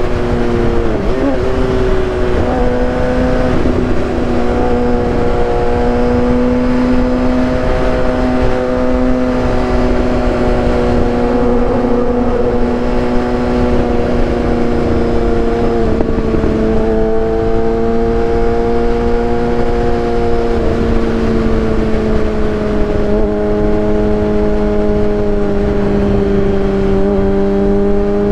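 2015 Kawasaki ZX-6R 636 inline-four with a Racefit aftermarket exhaust, running at a steady cruise under way, its pitch shifting a little a few times with throttle changes. Wind rush on the microphone underneath.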